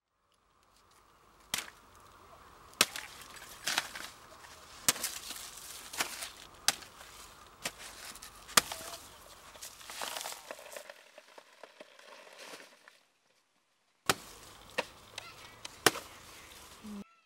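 A blade chopping into banana plant stems: sharp strikes about once a second, with a faint steady high tone behind the first ones. The strikes break off for about a second roughly three-quarters through, then three more follow.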